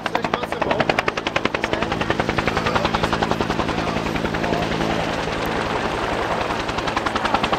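Bell AH-1 Cobra helicopter's two-blade main rotor beating rapidly at about ten blade slaps a second, close by as it comes in low to land. A steady lower hum under the rotor fades about halfway through.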